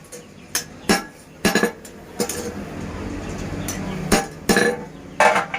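Hammer blows on metal at a blacksmith's forge: about eight sharp clanging strikes, unevenly spaced, some with a short ring, over a low steady background noise.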